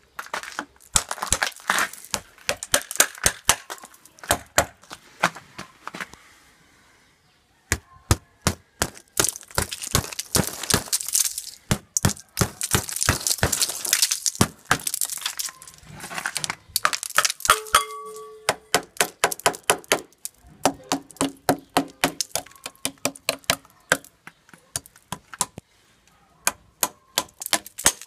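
Ice being cracked and chipped off a frozen small motorcycle engine and frame with a metal hand tool: rapid runs of sharp cracks, taps and snaps, with shards breaking away, and a short pause about six seconds in.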